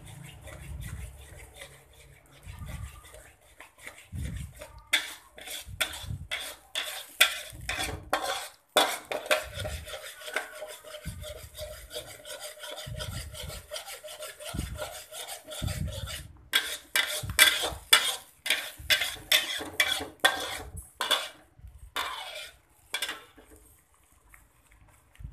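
A metal spoon scraping and stirring spice paste around a pan in repeated strokes, two or three a second, pausing now and then and going quieter near the end. The paste is being sautéed in oil until it turns fragrant.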